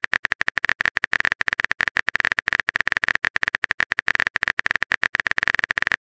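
Simulated phone-keyboard typing sound effect: a rapid, even string of sharp clicks, more than ten a second, as a text message is typed out letter by letter.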